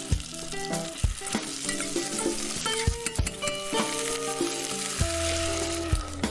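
Chopped onion sizzling as it fries in hot oil in a saucepan, with the hiss filling out a couple of seconds in.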